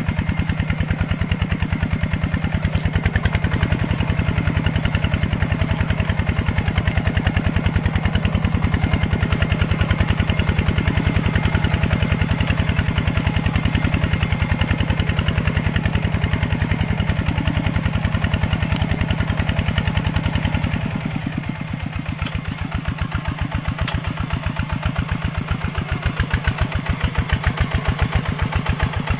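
Small tractor's single-cylinder diesel engine running steadily under work with a rapid, even chugging beat as it plows. About twenty seconds in it eases off briefly, then picks up again.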